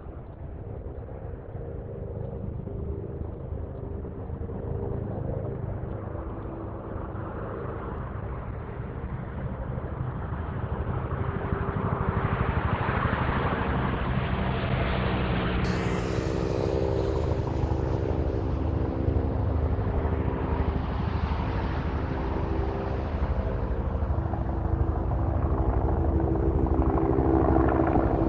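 Helicopter's rotor beat and engine whine, growing steadily louder as it approaches.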